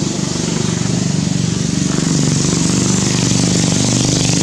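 A small engine running steadily at an even pitch.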